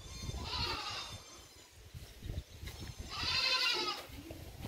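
A goat bleating twice: a short call about half a second in, then a louder, longer wavering one about three seconds in.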